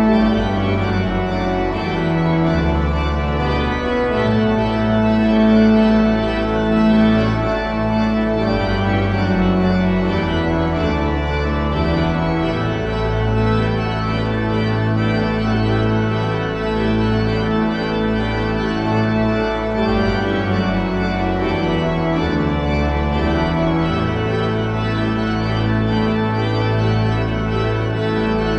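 Church pipe organ playing full sustained chords over long held bass notes that change every few seconds.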